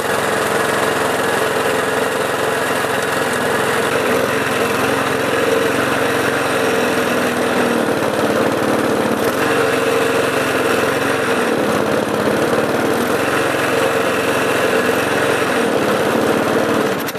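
Briggs & Stratton Quattro 4 hp single-cylinder four-stroke lawn mower engine running steadily, not revving as high as it should: the owner puts this down to a governor spring weakened with age.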